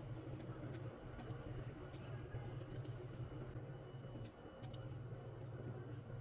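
Light, irregular clicks of steel surgical instruments during suturing, about seven in all, over a steady low hum.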